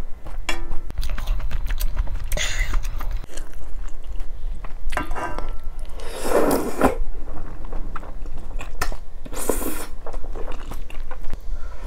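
Close-miked eating of maratang: wet chewing with many small clicks, broken by a few short slurps of soup and glass noodles. The loudest and longest slurp comes about six seconds in, and another follows near the end.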